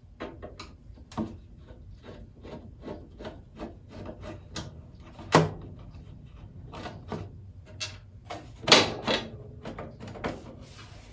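Irregular clicks and knocks of hands working a popped-out part on a DeWalt DW734 thickness planer, pressing it back into place, with a louder knock about five seconds in and a cluster of loud knocks near nine seconds.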